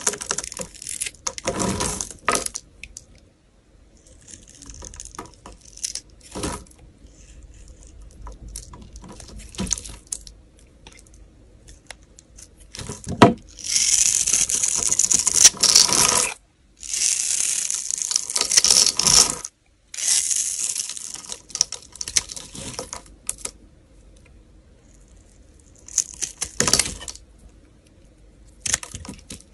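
Snap-off utility knife blade cutting through a bar of soap: crisp scraping and crunching strokes in bursts as thin slices and shavings come away, the longest and loudest run of shaving about halfway through.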